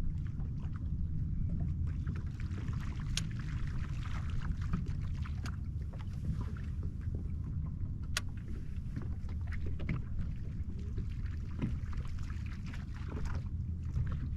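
Small boat on open water: a steady low rumble with faint crackling water against the hull, and two sharp clicks, about three and eight seconds in.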